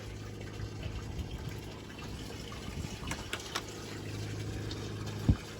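Water moving and splashing over a steady low hum, with one sharp knock about five seconds in.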